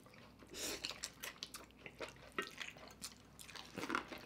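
Quiet, close-up wet eating sounds: chewing, lip smacks and short sucking noises as saucy noodles and corn on the cob are eaten, in scattered brief bursts.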